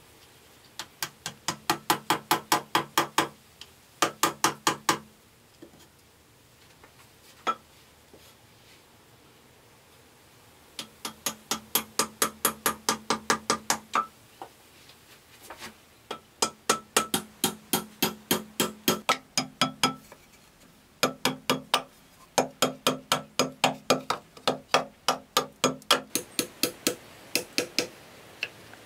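Runs of rapid hammer strikes, about five or six a second, each with a hollow ringing tone whose pitch shifts from run to run, as a bamboo candle holder is fixed to a stone wall.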